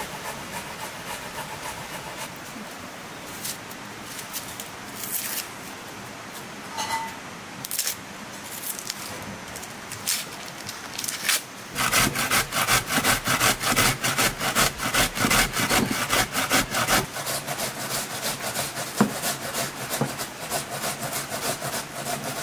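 An onion being grated on a metal box grater: rasping strokes, quieter and scattered at first, then a loud, quick, even run of several strokes a second from about halfway through.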